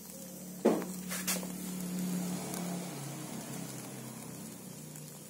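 Gas stove burner flame hissing under turmeric roots set on the burner to roast. A sharp knock comes about a second in, with a low steady hum that starts with it and fades out over the next few seconds.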